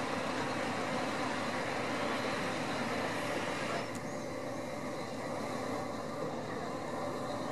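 Truck-mounted hydraulic knuckle-boom crane running steadily, its lorry's diesel engine driving the crane hydraulics as it holds a boat in slings. The sound steps down a little, losing some of its higher part, about four seconds in.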